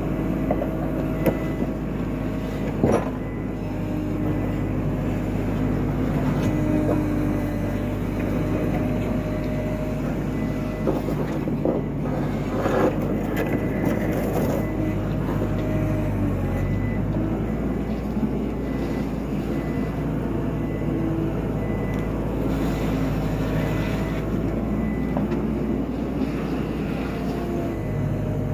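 Skid steer's diesel engine running steadily, its pitch shifting up and down as it works, with a few sharp knocks about three seconds in and around the middle.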